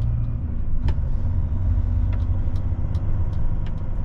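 Truck's diesel engine running at low speed, heard from inside the cab as a steady low rumble, with a few light ticks and rattles scattered through it.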